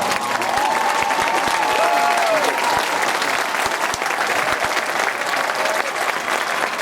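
Crowd applauding and cheering, with rising-and-falling whoops in the first two or three seconds.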